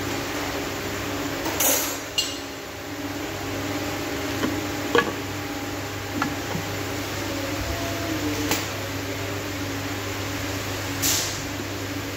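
Scattered metallic clinks and knocks of tools and parts being handled during a jet ski engine rebuild, about seven in all, the sharpest about five seconds in, over a steady low hum.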